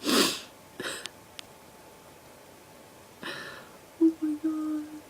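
A house cat vocalising: three short breathy sounds, then a short, low, steady-pitched call in three pieces near the end.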